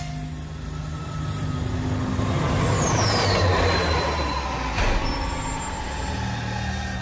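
Cartoon vehicle sound effects: a steady low engine hum under a swelling hiss, with a high whine falling in pitch about three seconds in and a sharp clank near five seconds.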